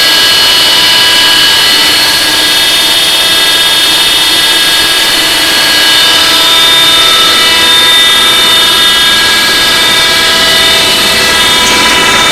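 Wire-recycling turbo mill and separator running: a loud, steady machine whine made of several high tones over a constant noise.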